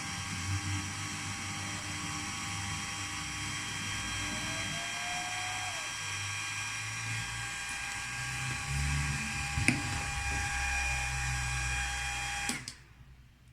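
Small high-speed electric drill running steadily with a high, even whine, with a sharp click about ten seconds in. It stops abruptly near the end.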